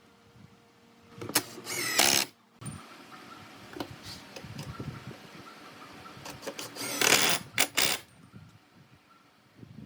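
Handheld power tool run in two short bursts of about a second each, with quieter knocks and handling of wood between them.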